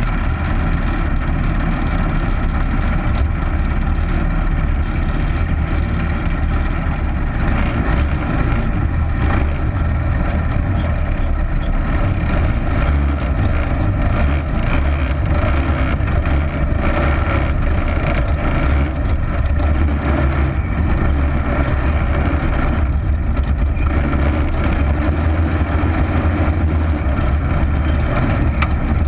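Small race car engine running steadily, heard close up from the car itself.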